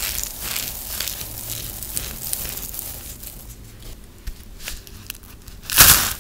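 Dry, crumbly soap shavings rustling and crackling as handfuls are sifted through the fingers, fading to scattered faint ticks. Near the end comes a single loud crunch as a dry soap ball is squeezed in the hands.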